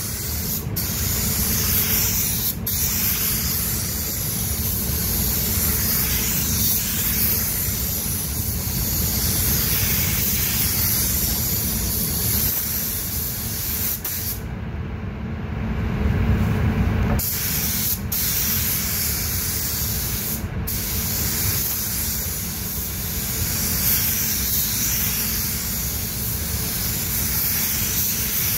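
A gravity-feed air spray gun hisses as it lays down a pearl coat over white automotive basecoat. The trigger is let go a few times for a split second, and once for about three seconds in the middle. A low steady rumble runs underneath.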